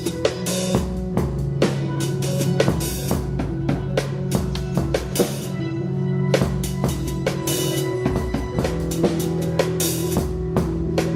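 Live band playing an instrumental passage: a drum kit keeps up a busy beat of kick and snare hits with repeated cymbal crashes over long sustained low notes.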